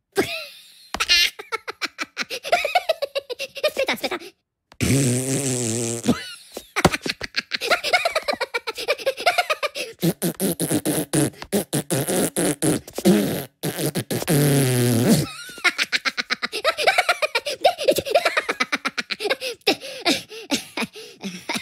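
Cartoon Minions making long, rattling fart noises, with bursts of their high-pitched giggling and gibberish chatter in between.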